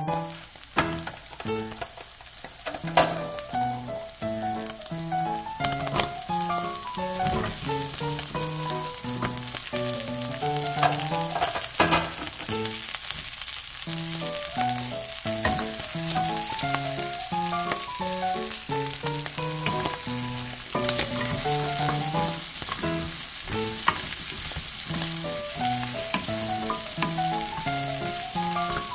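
Ground pork and green beans sizzling in a stainless steel pan, stirred with a wooden spatula, with scattered sharp clicks against the metal. Background music with a stepping melody plays underneath.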